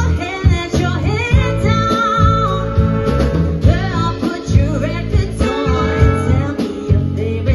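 A song with singing over a band, with guitar and a steady beat.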